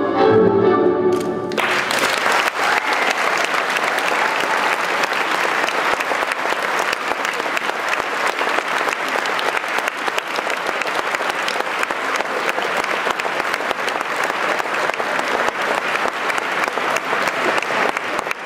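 Tango music ends about a second and a half in, and the audience breaks into steady applause.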